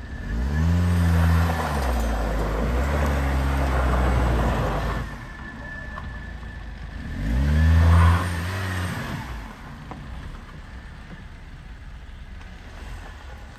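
Front-wheel-drive Audi A6 sedan's engine revving hard twice, with its front wheels spinning in loose dirt and gravel. The first rev is held for about four seconds. The second, shorter and louder, comes about seven seconds in. The car is stuck on the steep dirt slope and can't climb it.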